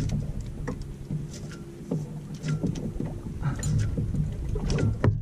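Water slapping and lapping against the hull of an anchored sailboat, with scattered small clicks and knocks.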